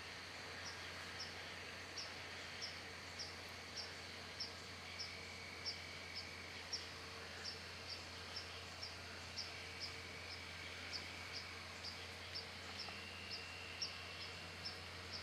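A cricket chirping steadily, about two short high chirps a second, with fainter insect trills coming and going behind it.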